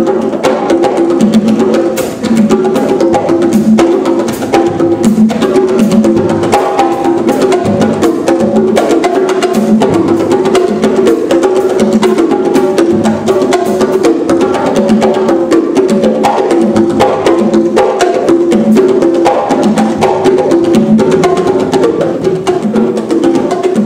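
Congas played by hand in a fast, unbroken stream of strokes, moving between a lower and a higher drum tone.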